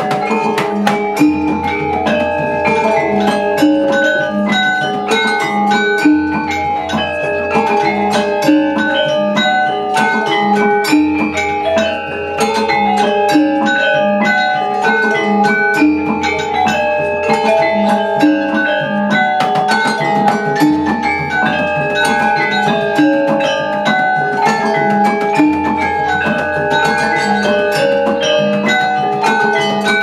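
Gamelan ensemble playing: metallophones and small kettle gongs ring out dense, interlocking melodic patterns, over a deep low note that changes about every five seconds.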